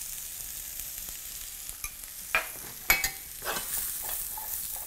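Sweet potato and bell pepper pieces sizzling in oil in a frying pan, with a steady hiss. In the second half a spatula scrapes and clicks against the pan as the food is stirred, most sharply about two and a half and three seconds in.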